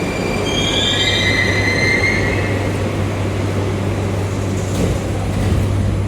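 Moscow Metro train running through a station with a steady rumble and a low hum. In the first two seconds or so, a high, wavering metal-on-metal squeal from the wheels rises over it, then fades.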